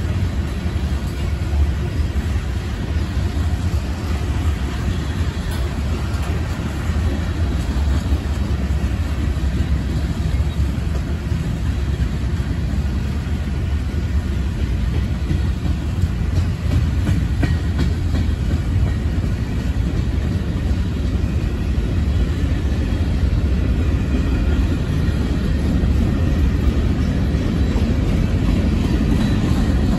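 Freight train cars (covered hoppers and boxcars) rolling past: a steady, heavy rumble of steel wheels on the rails, growing slightly louder near the end.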